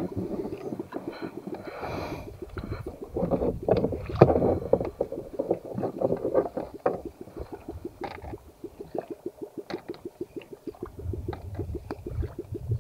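Water lapping against the hull of a small fishing boat in a quick, even patter, with scattered clicks from a metal jig and fishing tackle being handled.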